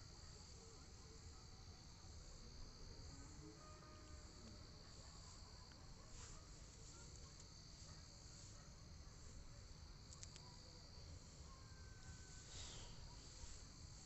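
Near silence: room tone with a faint, steady high-pitched tone in the background that fades about eleven seconds in.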